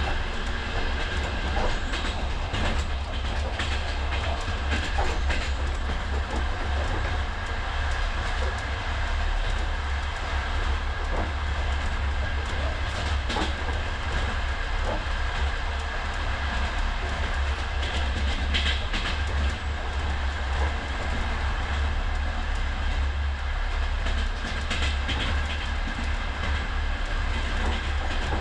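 Moving passenger train heard from inside a sleeping compartment: a steady low rumble of the wheels and car, with scattered sharp clicks and knocks.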